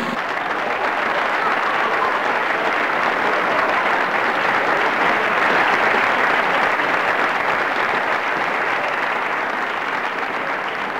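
Applause: many people clapping in a steady, dense wash that swells a little toward the middle and eases slightly near the end.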